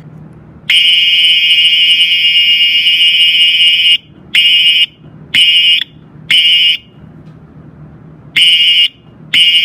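Space Age Electronics HA24D fire alarm horn sounding on a 9-volt battery, below full voltage. It gives a loud, buzzy blast of about three seconds, then a run of short half-second blasts at uneven spacing.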